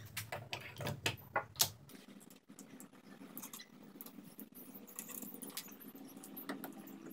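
A sharpening stone being handled in its wooden clamping holder: a quick run of small knocks and clicks in the first two seconds as the stone is seated, then scattered lighter clicks and scrapes as the holder and its bolts are adjusted and the holder is lifted.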